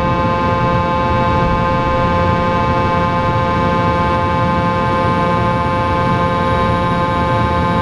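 Rear-mounted Pratt & Whitney Canada PW306 turbofans of a Cessna Citation Sovereign at climb thrust just after takeoff, heard inside the cabin: a steady whine of several held tones over a loud rushing rumble.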